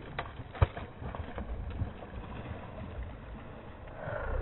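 A hooked pike thrashing and splashing at the surface, with water sloshing and a few sharp knocks, the loudest about half a second in.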